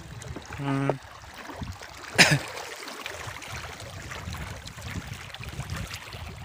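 Wind-driven ripples lapping against the stone riprap at a reservoir's edge, with wind noise. A brief hummed voice comes just under a second in, and a single sharp short sound about two seconds in.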